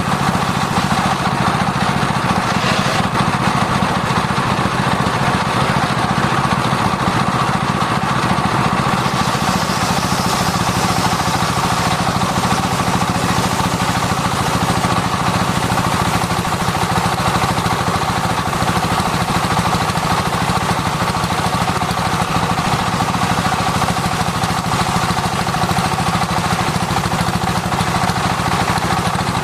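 Circular sawmill running steadily, its motor and spinning blade making a continuous mechanical drone while sengon wood is sawn; a brighter hiss joins about nine seconds in.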